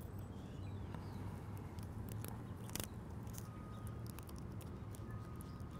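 Faint scattered clicks and crackles of adhesive tape being peeled off a laptop LCD's video-cable connector, over a low steady hum.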